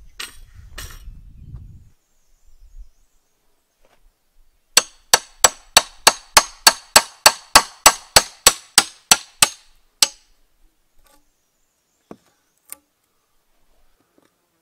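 Steel hammer striking the back of an axe head set into the end of a spruce log, splitting out a notch: a quick run of about twenty sharp metallic clangs, close to four a second, that stops after about five seconds. Just before, near the start, the last strokes of a hand saw cutting through the log.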